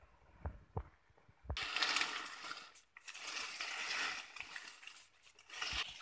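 Leafy coffee branches rustling and coffee cherries rattling onto a burlap tarp as they are stripped by hand, in several noisy stretches. A few soft thumps come first.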